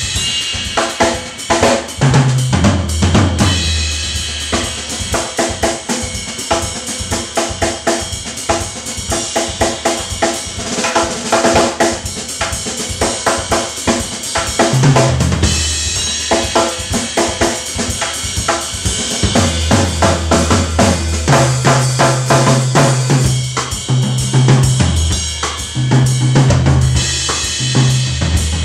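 Drum kit played with sticks: a steady groove on snare, bass drum and cymbals. Held low bass notes change pitch every second or two underneath.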